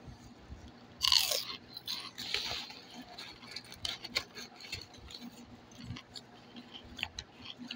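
A person biting into and chewing puffed microwave pork rinds: one loud crunch about a second in, then a run of smaller crackling crunches as they are chewed.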